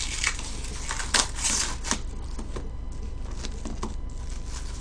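Thin plastic wrapper crinkling and crackling as a packet of plastic cutlery is torn open, in a run of bursts over the first two seconds, then a few lighter clicks of plastic being handled.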